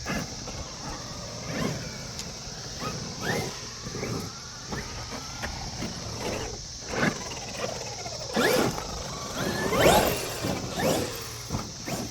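Traxxas XRT electric RC monster trucks driven hard on a dirt track: the motors whine up and down in pitch as they rev, with tyres scrabbling and knocks from bumps and landings. The loudest burst of revving and knocking comes about eight to eleven seconds in.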